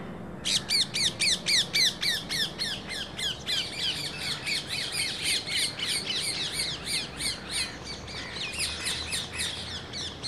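Birds calling in a fast run of short, sharp, descending notes, about five a second, starting about half a second in. The calls are loudest over the first couple of seconds, then overlap more densely and a little softer.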